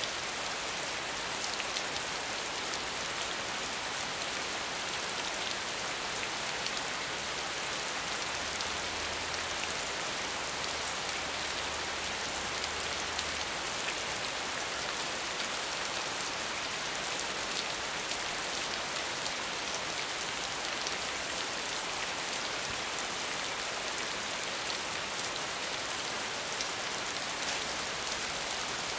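Steady medium rainfall: an even hiss of rain with many fine drop ticks mixed through it.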